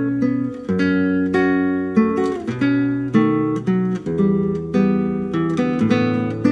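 Nylon-string classical guitar built by Kim Sang Gil, played fingerstyle: a melody of plucked notes over low bass notes, about two new notes a second, each left to ring.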